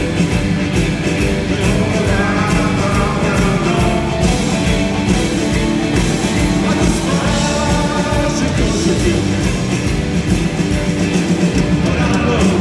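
Live rock band playing loudly, with electric guitars, a steady beat and a sung vocal line, heard from the audience of a large hall.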